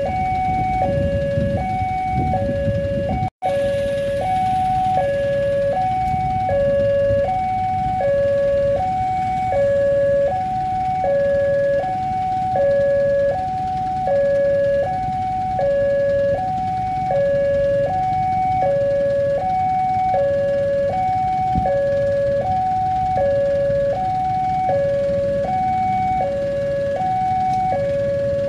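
Indonesian railway level-crossing warning alarm sounding from the crossing's loudspeaker: an electronic two-tone signal alternating a higher and a lower note, about one pair every two seconds, warning that a train is approaching. Underneath is the low rumble of motorcycles and a van idling at the lowered barrier. The sound cuts out for an instant about three seconds in.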